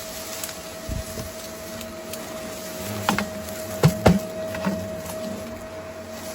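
A few short, sharp knocks and clicks bunched together about three to four and a half seconds in, the kind made by handling hard objects. They sit over a steady, thin high hum that runs throughout.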